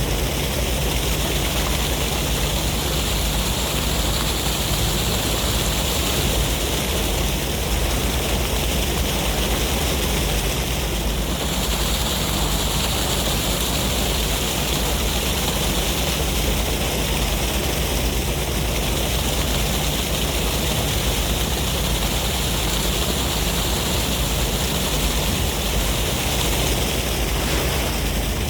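Sea waves washing continuously with wind, a steady rush of surf over a low rumble that swells gently every several seconds.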